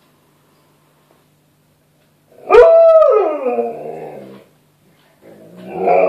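Alaskan malamute howling: after a short quiet, one long howl starts sharply about two and a half seconds in and slides down in pitch as it fades. A second howl swells up near the end.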